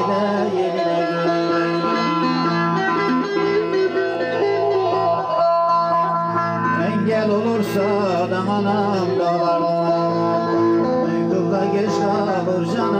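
Turkish folk dance music led by a plucked string instrument, with a winding melody over steady held drone notes.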